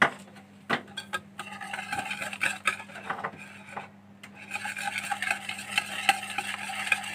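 Wire balloon whisk beating oil into a mixture of eggs and sugar in a mixing bowl, its wires scraping and clinking on the bowl. It opens with a sharp knock and a few separate clinks, then works unevenly, and from about halfway turns into steady fast whisking.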